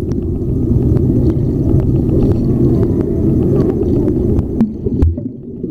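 Muffled underwater churning and bubbling of pool water, heard through a submerged camera: a dense low rumble, with a couple of knocks near the end.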